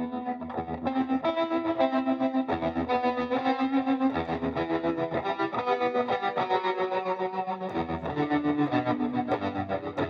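Electric guitar played through distortion and effects pedals, picking a melodic line of quick notes that change pitch every half second or so.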